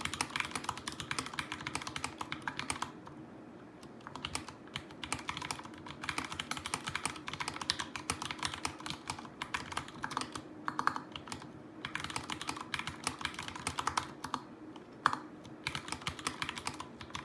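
Fast typing on a Vortex Pok3r mechanical keyboard with lubed Cherry MX Brown switches: a dense run of keystrokes broken by several short pauses.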